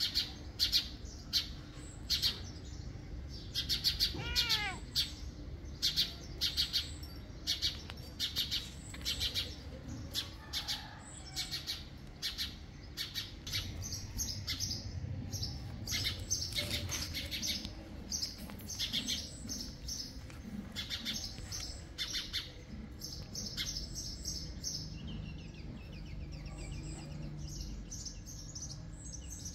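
Small songbirds chirping: short, high chirps coming one after another, over a low steady background rumble, with one longer call falling in pitch about four seconds in.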